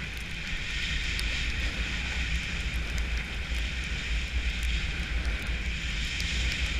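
Wind buffeting the microphone of a moving action camera, with a steady hiss of a snowboard sliding over snow.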